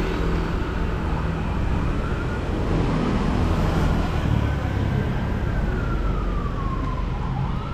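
Steady street-traffic rumble, with a faint siren wailing: its pitch slowly rises, falls over a few seconds, and starts to rise again near the end.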